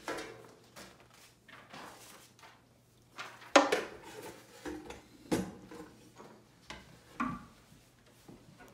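Sheet music being handled at a music stand: paper rustling with scattered knocks and clatters, the loudest knock about three and a half seconds in.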